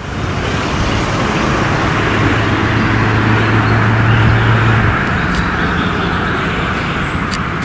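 VL10U electric locomotive hauling a container train past at speed: a steady rumble of wheels on rail under a low hum that stops about five seconds in, with a sharp click from the wheels near the end.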